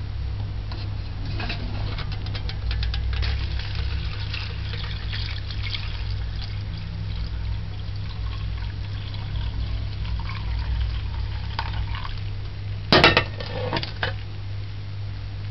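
Sorrel drink being poured from a bowl through a plastic mesh strainer into a pot: a splashing pour that is heaviest in the first few seconds, then trickles. Near the end come a couple of sharp knocks of kitchenware, one about a second after the other.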